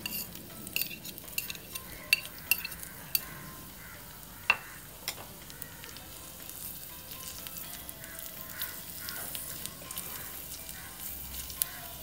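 Chopped onions sizzling in hot oil in a miniature kadai, with a small metal spatula clicking and scraping against the pan as it stirs them. The clicks come thickest in the first five seconds.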